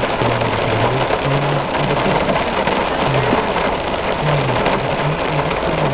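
Heavy rain pouring down in a steady, dense hiss. Underneath it, music plays, with low notes that change about every half second.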